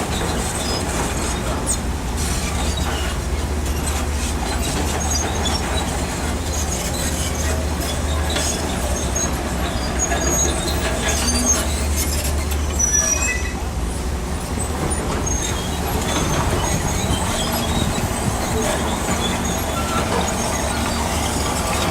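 Crawler bulldozer working: its diesel engine runs with a steady low drone while the steel tracks clank and squeal, with scattered metallic clicks and short squeaks throughout.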